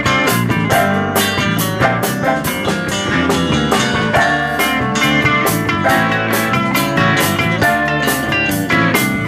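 Live rock band playing an instrumental section: electric guitars over a steady drum beat.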